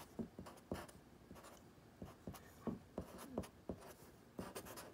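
Sharpie felt-tip marker writing on paper: a quick run of short, separate strokes as figures and letters are written out.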